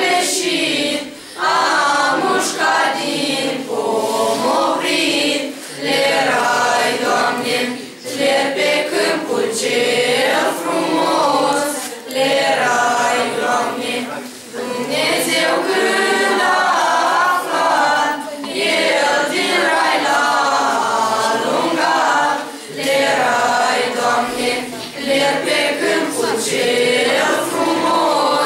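A mixed group of young men and women singing a Romanian Christmas carol (colind) together, in phrases with short breaks between them.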